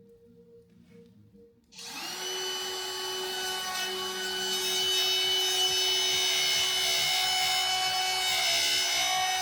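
An electric power tool starting up about two seconds in, its motor whine rising quickly and then holding steady as it works plywood.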